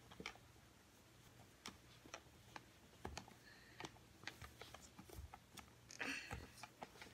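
Faint, irregular clicks and rustles of a plastic Baby Alive doll being handled as pajamas are pulled onto it and its arm is worked into a sleeve, with a louder rustle about six seconds in.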